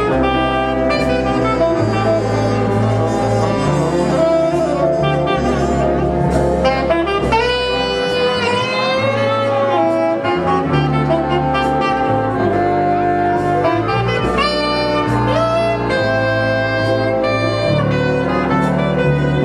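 Jazz music with a saxophone playing the lead melody over a low bass line, with a few notes bent up and down about halfway through.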